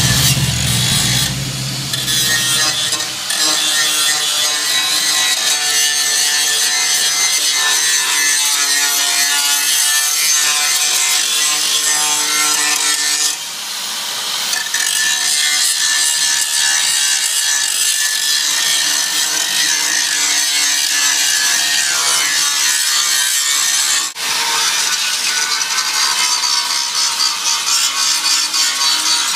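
Angle grinder cutting and grinding the sheet-steel fender apron: a steady high whine with a harsh rasp, easing off briefly about halfway through before cutting on.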